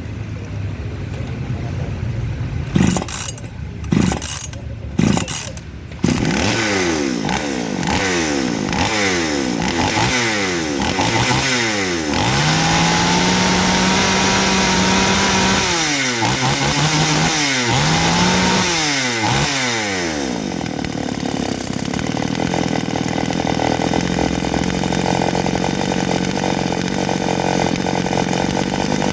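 Two-stroke chainsaw with a newly fitted carburettor running: a few short bursts as it catches, then the throttle blipped repeatedly, held at high revs for a few seconds, blipped again, and settling to a steady idle in the last third.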